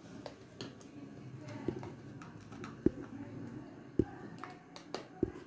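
Screwdriver turning small screws into an LED bulb housing: scattered light clicks and ticks of the tip on the screw heads and the housing, with about three sharper knocks, the clearest around the middle and about four seconds in.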